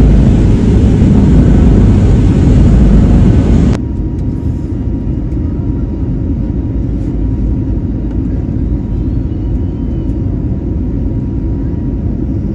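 Jet airliner taking off, heard from the passenger cabin: a loud, steady rumble of engines and airflow that drops suddenly about four seconds in to a quieter steady rumble with a faint thin tone.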